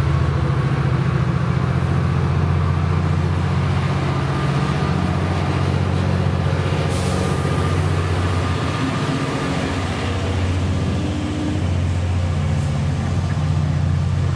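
A heavy engine running with a steady low drone.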